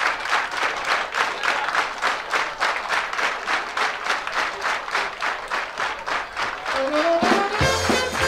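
Audience applause with a steady clapping rhythm, roughly three to four claps a second. Near the end a live band comes back in with a rising run into an upbeat swing tune.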